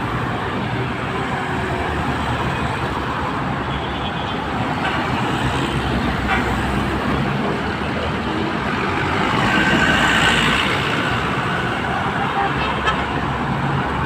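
Steady road traffic noise from cars and buses on a busy street, with a vehicle passing close and louder about ten seconds in.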